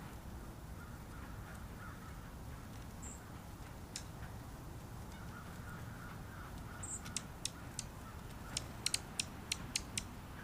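Outdoor ambience with a steady low rumble, crows cawing in the distance and two brief high bird chirps. About seven seconds in, a quick run of about ten sharp clicks starts; these are the loudest sounds.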